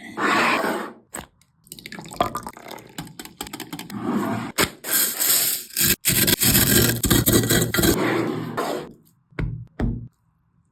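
Scraping and rustling noises of food preparation, in uneven bursts with short gaps. The loudest stretch is between about five and eight seconds in, and a few short knocks come near the end.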